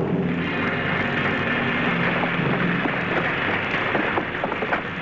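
Steady crackling hiss of an electrical sound effect, with scattered sharp clicks through it.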